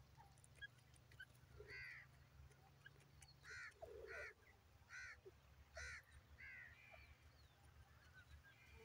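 Grey francolin calling faintly: a run of about six short, harsh notes, roughly one every three-quarters of a second, from about a second and a half in.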